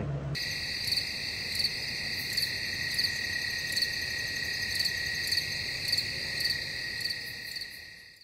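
Chorus of night insects trilling steadily, with a pulsing call about twice a second over it; it fades out near the end.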